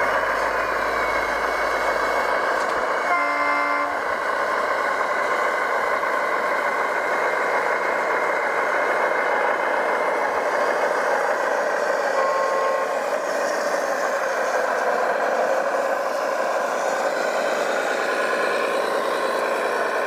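Radio-controlled model vehicles running with a steady mechanical whir, and a short horn blast about three seconds in.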